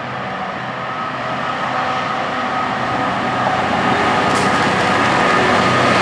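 Three GBRf Class 66 diesel-electric locomotives at the head of a coal train, their EMD two-stroke V12 engines running with a steady low drone and a steady higher tone. The sound grows steadily louder as the locomotives approach and draw alongside.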